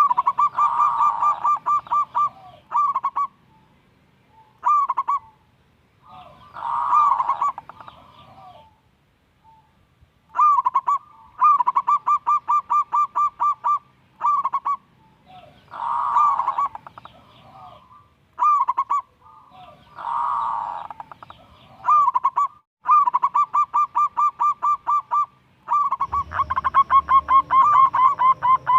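Zebra dove (perkutut) singing: phrase after phrase of quick, staccato cooing notes, repeated every few seconds. A low rumble joins near the end.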